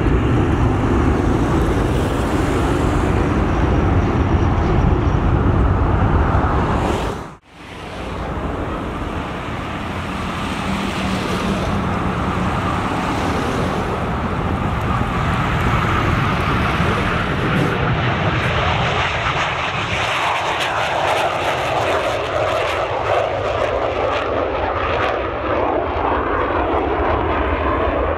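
Boeing KC-135E Stratotanker's four jet engines running at climb-out power. After a cut about seven seconds in, the twin jet engines of a Northrop F-5F Tigre III run at takeoff power through its takeoff roll and climb-out, crackling in the later part.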